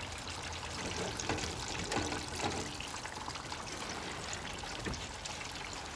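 Hot oil in a deep fryer sizzling steadily with fine crackles as catfish fries.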